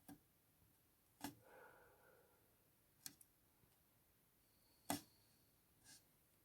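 A few faint, irregularly spaced clicks, the loudest about five seconds in, typical of a computer mouse being clicked; otherwise near silence.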